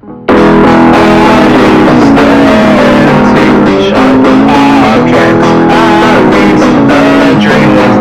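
A recorded band track, loud guitar music with electric guitars and bass guitar, starting abruptly a moment in.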